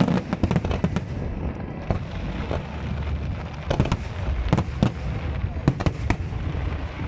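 Aerial firework shells bursting in quick succession: many sharp bangs and crackles over a continuous low rumble.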